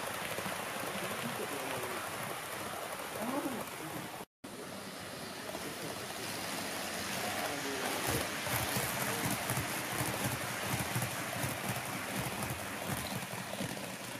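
HO-gauge model of a JR Hokkaido Super Hokuto diesel express running along the layout track: a steady rushing rumble of its wheels and motor, with faint voices in the background. The sound drops out for an instant about four seconds in.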